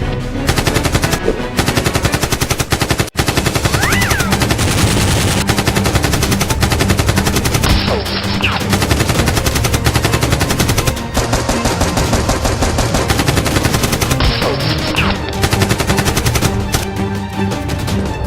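Rapid automatic gunfire sound effects in long, almost continuous bursts, with a brief break about three seconds in, over background music.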